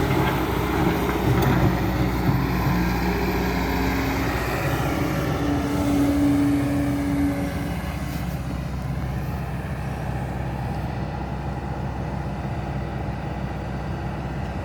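Heavy diesel machinery engine running steadily, with a brief higher steady whine over it from about four to seven seconds in; it gets a little quieter after about eight seconds.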